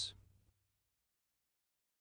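Near silence: the tail of the previous word fades out in the first moment, then nothing is heard.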